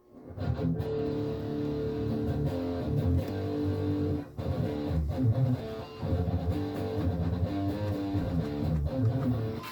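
Martin D-16 acoustic guitar being played: strummed and picked chords over bass notes, with brief breaks between phrases.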